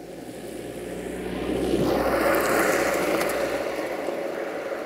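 A vehicle passing by: a rushing noise that swells to a peak about two seconds in, with a few clicks at its loudest, then fades away.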